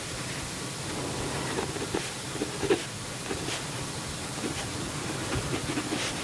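Steady hiss with faint, brief scratches of a pen writing on paper.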